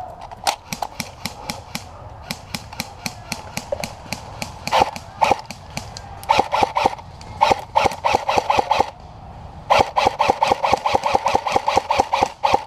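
Airsoft electric guns firing: scattered single shots, then several rapid full-auto strings, the longest about three seconds near the end.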